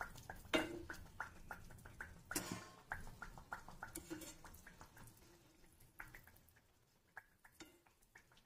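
Gujiya deep-frying in hot oil: soft crackling and popping from the oil, thinning out toward the end, with a few light knocks of a perforated steel skimmer against the pan as the fried pieces are lifted out.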